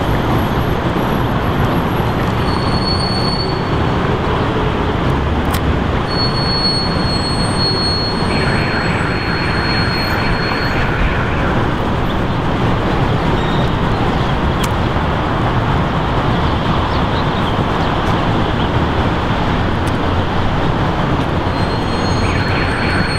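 Steady din of city traffic from the streets below, with a few short high-pitched squeals on top, the longest a few seconds in.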